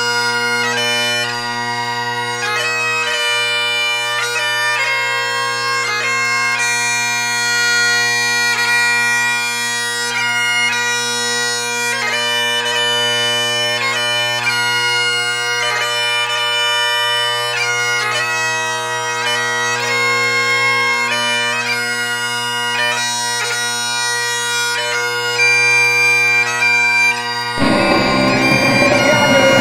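Bagpipe music: steady drones held under a chanter melody. Near the end the drones stop abruptly and different, busier music begins.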